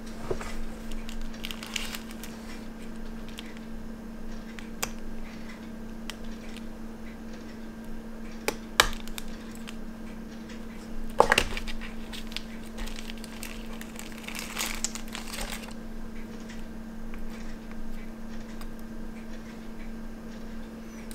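Thin clear plastic film crinkling as it is pressed and worked over a watch dial, with a few small sharp clicks, the loudest about eleven seconds in. A steady low hum runs underneath.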